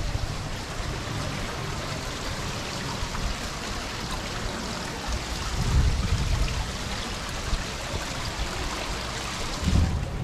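Steady rush of moving water, with low rumbling gusts of wind on the microphone about six seconds in and again near the end.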